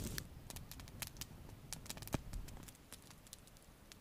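Small wood campfire crackling faintly, with a few sparse pops that thin out over the seconds.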